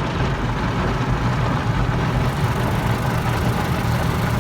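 Automatic car wash machinery running, heard from inside the car's cabin: a steady rumbling wash of noise over the idling car.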